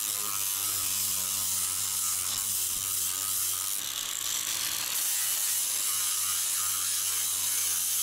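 Ferrex 40 V cordless angle grinder running steadily with its disc sanding down wood, a continuous motor whine over the rasp of the disc on the timber.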